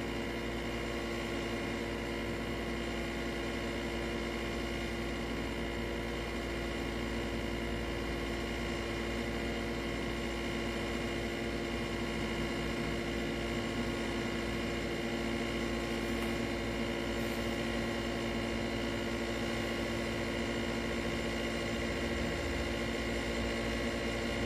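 Steady machine hum with several fixed pitches over a low rumble, unchanging throughout, as from an appliance motor running.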